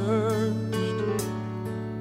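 Southern gospel ballad: a male voice holds a note with a wide vibrato over sustained piano and band accompaniment, then the voice drops away, leaving the held accompaniment.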